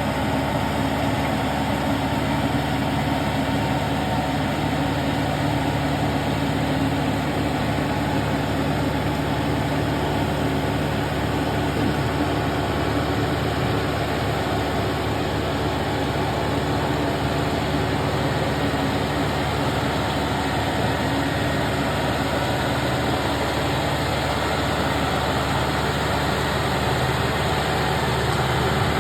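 Kubota SL54 tractor's diesel engine running steadily while puddling a flooded rice paddy, its pitch and level unchanging.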